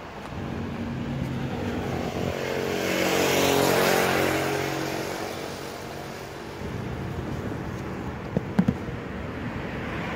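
A motor vehicle passing close by, its engine sound swelling to loudest about four seconds in and then fading. A few sharp knocks sound near the end.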